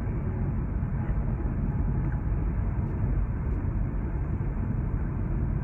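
Steady low road rumble heard inside a car cabin travelling at highway speed.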